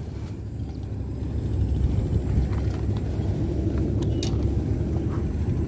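Low steady rumble of a distant motor, with a few faint clicks about four seconds in.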